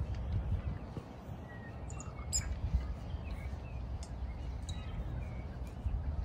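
Birds chirping faintly now and then over a steady low rumble of outdoor noise on the microphone.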